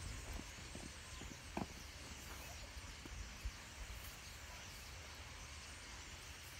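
Quiet outdoor background: a steady hiss and a low rumble, with a few faint clicks and knocks, the clearest about one and a half seconds in.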